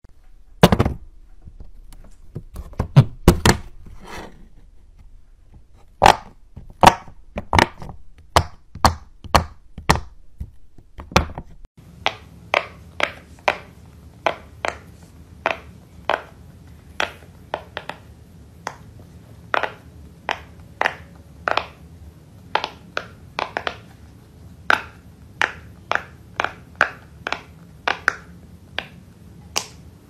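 Silicone pop-it fidget toy bubbles pressed in one at a time, each giving a sharp pop. The pops come unevenly at first, then steadily at about two a second, with a brief break a little before halfway.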